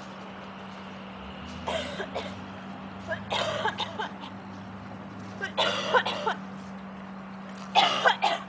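A person coughing hard in four fits, about two seconds apart, each louder than the last, over a steady low hum.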